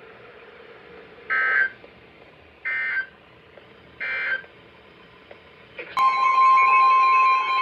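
Three short bursts of Emergency Alert System data tones, about a second and a half apart: the SAME end-of-message code that closes a warning. About six seconds in, a steady, high alert tone begins and carries on.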